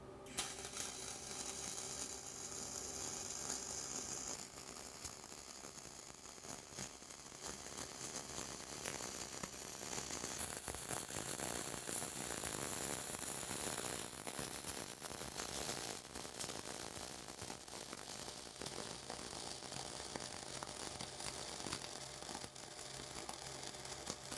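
Flux-core wire-feed welding arc crackling steadily during a fill pass on pipe. The arc strikes just after the start and keeps going without a break to the end.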